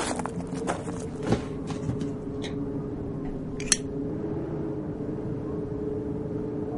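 Footsteps on scattered rubbish, a few steps in the first two seconds, then a single sharp click about three and a half seconds in, over a steady low hum.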